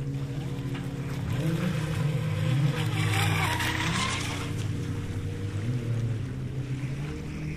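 Wltoys WL913 brushless RC speedboat running fast across the water. The hiss of its hull and spray swells as it passes closest, three to four seconds in, over a steady low hum.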